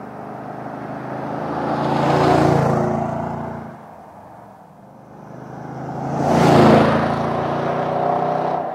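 Nissan Titan's 5.6-liter V8 through a Flowmaster FlowFX Extreme stainless cat-back exhaust with a single dump exit, driving past twice. The sound swells loud about two seconds in, fades, then swells again to its loudest near seven seconds.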